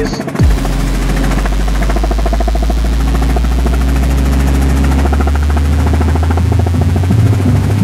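Helicopter in flight heard from inside the cabin: a steady, loud low drone of engine and rotor.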